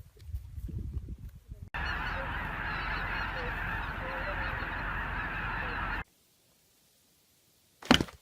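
A dense chorus of many birds calling at once, starting abruptly about a second and a half in and cutting off sharply about four seconds later.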